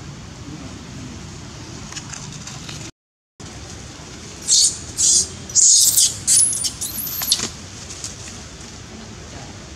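Baby macaque screaming: a run of shrill, very high-pitched shrieks starting about halfway through, ending in two squeals that rise and fall in pitch, over about three seconds.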